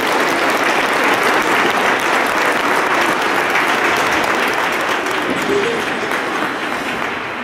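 Audience applauding, a dense steady patter of many hands that thins out near the end.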